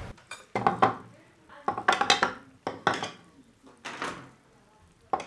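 Cutlery and dishes clinking at a meal table: a spoon or ladle knocking against bowls and a pot, in a string of separate sharp clinks with a short ring after each.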